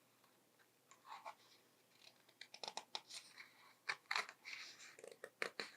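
Faint paper rustling and scattered light clicks of a picture book's page being turned and handled, starting about a second in and busier in the second half.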